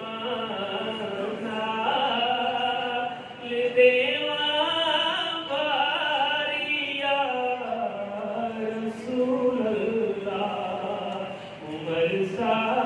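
An elderly man singing a Punjabi naat, a devotional song in praise of the Prophet, solo into a microphone. He holds long drawn-out notes that waver and bend in pitch, with two short breaks for breath, about a third of the way in and near the end.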